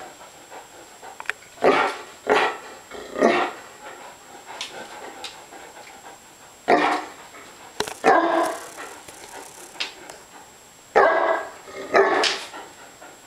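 Great Danes barking in about seven loud single barks, in three groups, while waiting to be fed.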